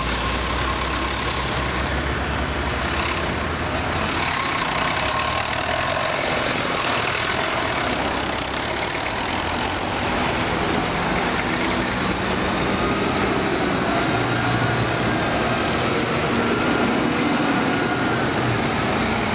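Several diesel tractors, vintage and modern, driving slowly past one after another, their engines running steadily at low speed.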